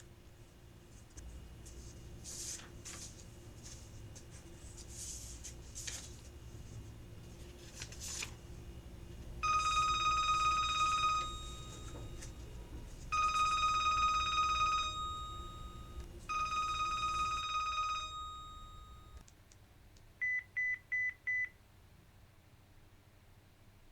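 Foley phone sounds: a few light clicks and knocks, then a telephone ringing three times in long electronic rings about two seconds apart, then four quick high beeps.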